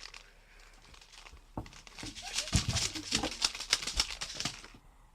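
Rapid crinkling and crackling for about three seconds, starting about a second and a half in, with a couple of dull knocks around the middle.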